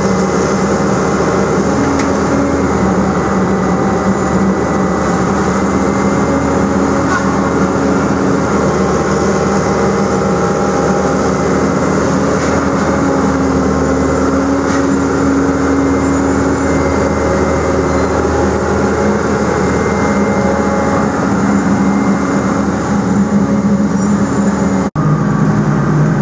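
A John Deere excavator's diesel engine running steadily close by, a low even drone with a higher tone coming and going as the boom and bucket work. About a second before the end it cuts abruptly to a different steady engine sound.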